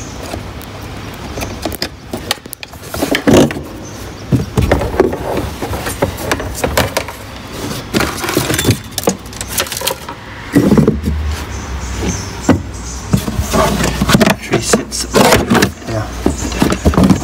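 Hands unplugging a car's boot subwoofer and lifting it out, then pulling back the carpeted floor trim: irregular plastic knocks, clicks and clatter with rustling of carpet.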